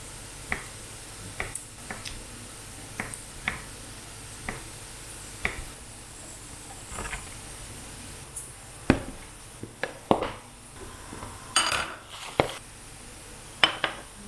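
Dishes and cutlery clinking and knocking in a kitchen: a dozen or so separate, irregular clinks, louder and closer together in the second half.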